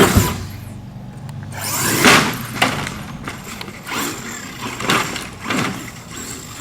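Traxxas X-Maxx electric RC monster truck running, its motor and drivetrain whining in repeated swells, the loudest at the start and about two seconds in.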